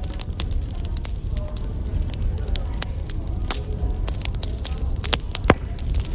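Wood fire crackling, with frequent irregular sharp pops over a steady low rumble; one louder pop about five and a half seconds in.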